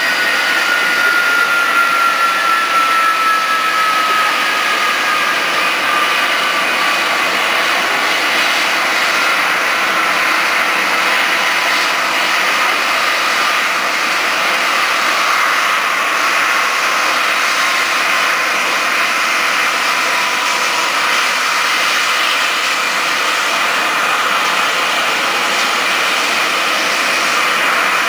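Boeing 767 jet engines running with a steady loud rush and a whine that glides slowly down in pitch over the first several seconds, with another falling whine about two-thirds of the way through.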